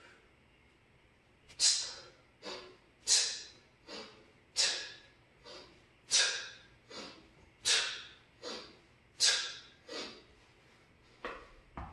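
A person's forceful breathing through a set of kettlebell swings: six loud, sharp breaths about a second and a half apart, one per swing, each followed by a shorter, quieter breath. A couple of soft knocks near the end.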